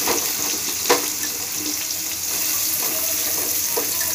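Eggplant sticks sizzling in hot oil in a steel kadai, a steady frying hiss. There is a single sharp knock against the pan about a second in, and a few lighter clicks.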